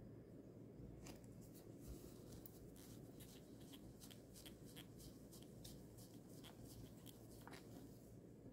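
Faint rubbing and scuffing of a cloth wiping a stainless-steel watch case and sapphire crystal: a quick run of short, soft scratchy strokes starting about a second in.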